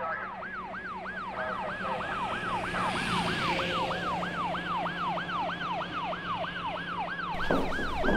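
Emergency vehicle siren in a fast yelp, its pitch sweeping up and down about three times a second and slowly growing louder. A rush of noise joins in near the end.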